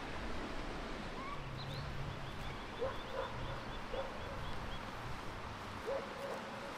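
Outdoor ambience: a steady background rush with faint bird calls, including a quick run of short high notes in the middle.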